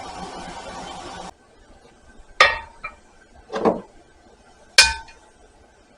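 Three evenly spaced hammer blows on steel, each a sharp ringing clink, about a second apart. They follow a steady noisy sound that cuts off abruptly.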